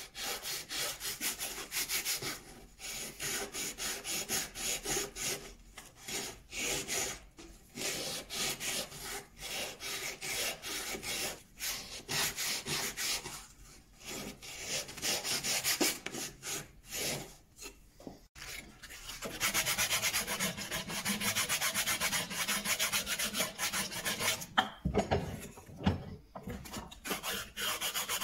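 Hand sanding the edge of a small thin wooden piece with sandpaper wrapped around a wooden block: quick, repeated rubbing strokes that merge into a denser, continuous rub about two-thirds of the way in. A few soft knocks come near the end.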